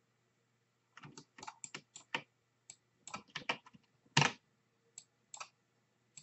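Computer keyboard being typed on: irregular light key taps starting about a second in, with one louder stroke about four seconds in.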